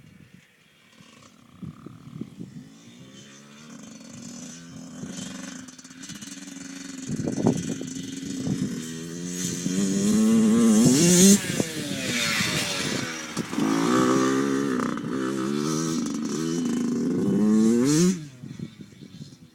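Dirt bike engine growing louder as it approaches, revving up and down repeatedly, loudest about ten seconds in, then dropping away sharply near the end.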